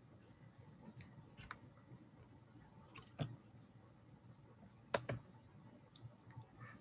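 A few faint, scattered clicks and taps over quiet room tone. The loudest comes about three seconds in, and a close pair follows near five seconds.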